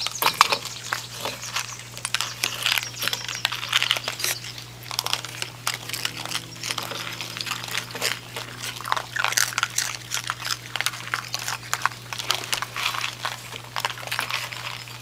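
Raccoons crunching and chewing Froot Loops: a dense, irregular run of crisp crunches and clicks, over a steady low hum.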